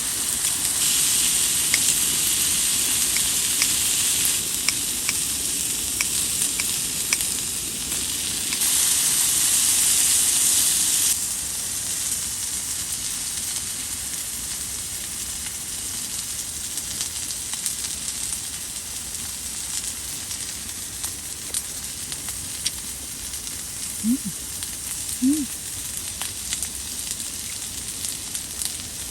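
Food sizzling in a hot oiled pan, a steady hiss dotted with small pops and crackles. The sizzle grows louder twice for a few seconds and drops back suddenly each time.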